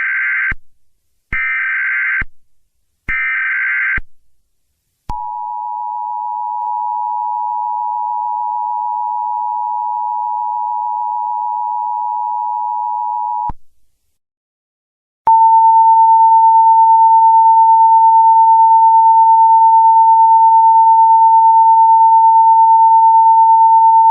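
Emergency Alert System tones: three short screechy data bursts (the SAME header), then the two-tone attention signal held steady for about eight seconds. After a short gap, a louder single steady tone starts about 15 seconds in.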